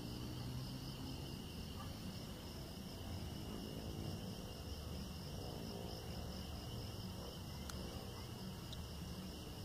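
Crickets chirping in a steady, continuous high trill, over a faint low rumble.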